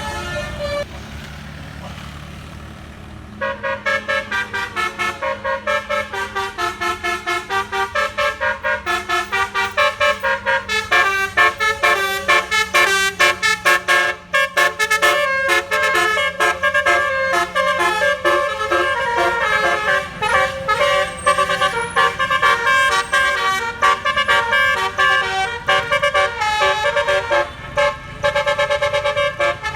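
Bus basuri telolet horn, a set of tuned air horns, playing a fast melody of short notes over a bus engine's low drone. The melody starts a few seconds in and runs on through the rest.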